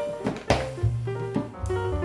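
Instrumental background music with a drum kit, a bass line and keyboard melody notes.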